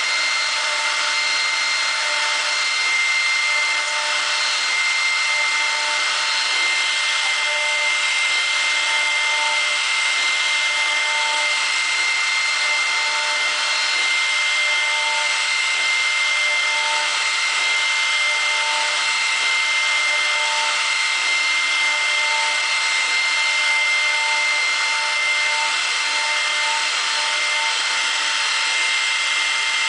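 CNC router with a 1.7 kW, 18,000 rpm spindle milling a PVC block with a 10 mm cutter: a steady high-pitched whine over an even cutting hiss, without a break.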